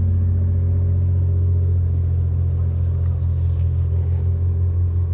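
A steady, loud low engine hum, like a motor idling, with a slight wavering in its level from about three seconds in.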